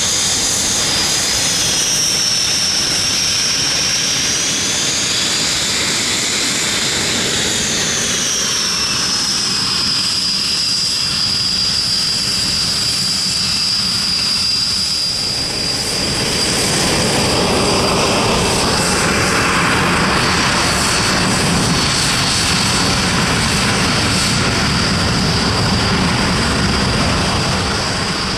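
Panavia Tornado's twin RB199 turbofan engines whining at taxi power. The high whine wavers in pitch for the first several seconds, then holds steady. From about halfway, a louder jet rush builds beneath it.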